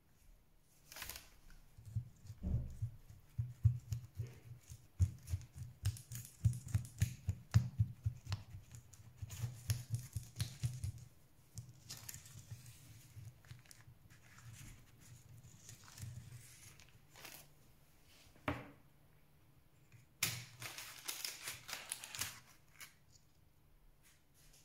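Silicone spatula scraping around the edge of a baked apple cake against the wall of a metal springform pan, in many quick strokes, mostly in the first ten seconds. Later a single sharp click as the springform's clasp is released, followed by a couple of seconds of crisp rustling of baking paper as the pan ring is lifted off.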